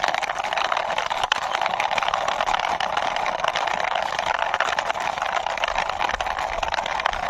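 Toy fuel tanker pushed along by hand, its small wheels rolling with a steady crackling rustle and scattered light clicks.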